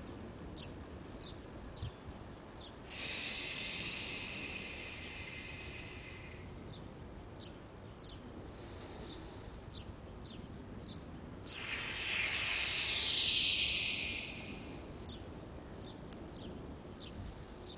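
Outdoor ambience: a steady low hiss with short high chirps repeating every half second or so, and two louder hissing swells, one about three seconds in and a stronger one about twelve seconds in.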